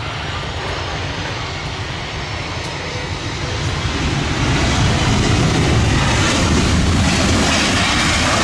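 Airplane engine noise, a steady rushing drone that grows louder about halfway through and then cuts off suddenly.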